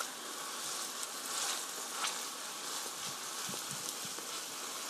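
Grapeseed oil sizzling steadily under mashed-potato pancake batter in a frying pan on low heat, with light scraping and tapping of a metal and a wooden spoon spreading the batter.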